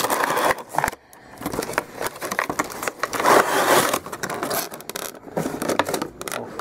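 Clear plastic packaging crinkling and rustling in the hands, with a cardboard box scraping, in irregular bursts.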